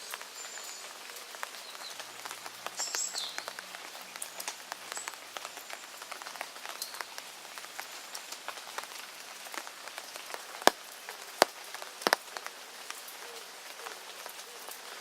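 Steady rain falling, with many small drop ticks and a few louder, sharp drop hits about ten to twelve seconds in.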